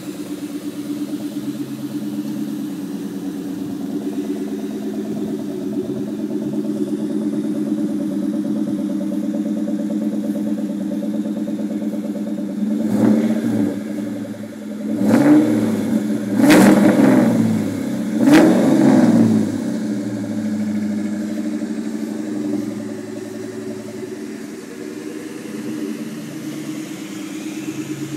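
1999 SVT Cobra's 4.6-litre V8 idling through a Bassani off-road X-pipe and Borla exhaust. About halfway through it is blipped once, then revved hard three times in quick succession, each rev rising and falling back to idle.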